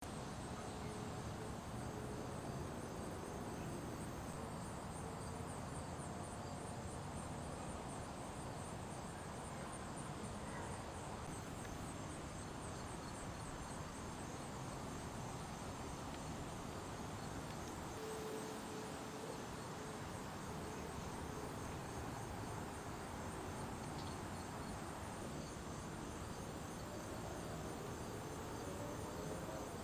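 Faint, steady chirping of insects, a rapid high pulsing over a low hiss.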